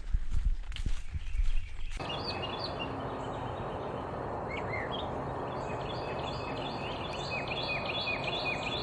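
Footsteps on a trail for about two seconds, then an abrupt change to a steady hiss with birds chirping. Near the end a bird sings a quick run of down-slurred notes, several a second.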